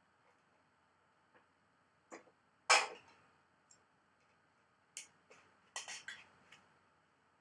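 Scattered clicks and knocks from handling a badminton racquet stringing machine and its clamps and tools, the loudest a short clatter about three seconds in and a quick run of clicks a couple of seconds later.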